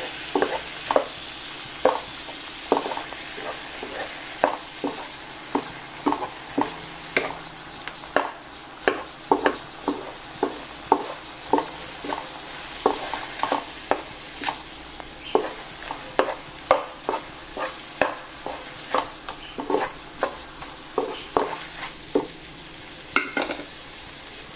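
A wooden spatula stirring and scraping in a non-stick wok, about two strokes a second, while egg and sliced chicken Chinese sausage sizzle in a little water. The sizzle thins out near the end as the water cooks off.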